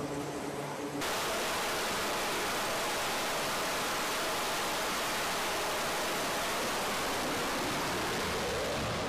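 Steady roar of F/A-18 Super Hornet jet engines on an aircraft carrier flight deck: an even rushing noise that cuts in abruptly about a second in, replacing a lower droning hum.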